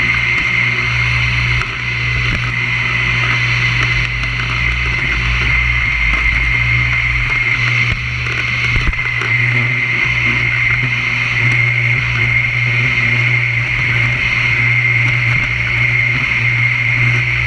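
Vacuum cleaner running steadily: a high whine over a low motor hum, with a brief knock or two about halfway through.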